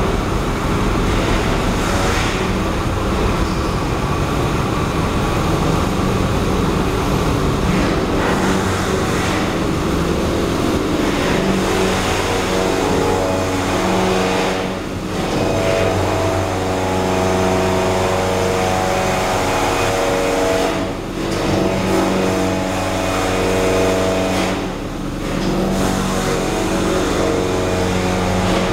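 Steady vehicle engine noise filling a ferry's enclosed car deck. About twelve seconds in, an engine running at a steady idle comes in over it.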